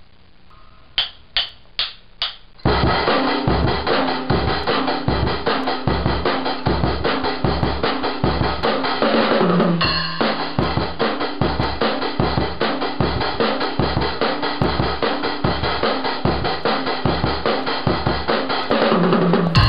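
Four quick sharp clicks, then a drum kit comes in about two and a half seconds in, playing a steady, driving beat of kick, snare and cymbals.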